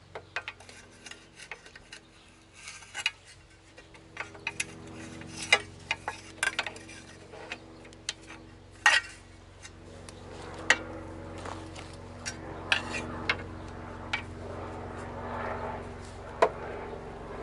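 Irregular metallic clinks, taps and knocks, like hand tools being set down and worked against metal parts, over a faint steady hum.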